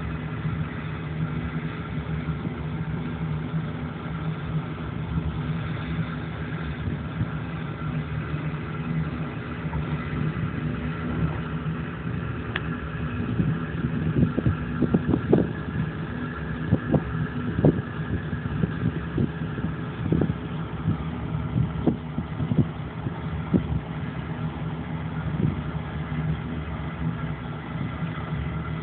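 A motor engine running steadily at a low, even pitch. Through the middle stretch come a series of irregular sharp knocks.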